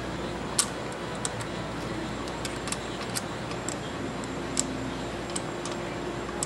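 Light metal clicks and taps of rocker arms being set into place on the open cylinder head of a 2007 Kawasaki Ninja 250: about seven sharp, separate clicks spread through, over a steady background hiss.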